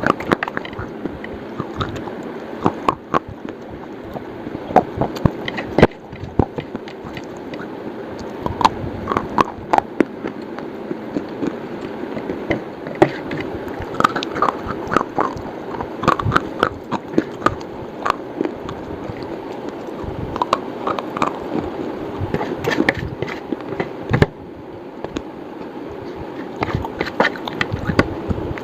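Crunchy slate bar being bitten and chewed: irregular sharp crunches and cracks, several a second at times, over a steady low background hum.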